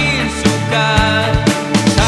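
Background music: a Malay-language rock song with a steady drum beat of about two hits a second, over bass and melodic instruments.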